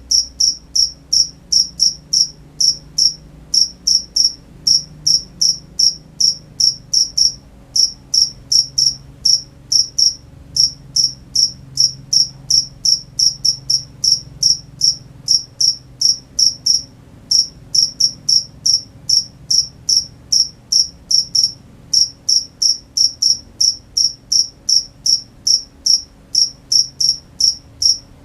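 Cricket chirping at night in a steady, even rhythm of short high-pitched chirps, about three a second, broken by brief pauses a few times.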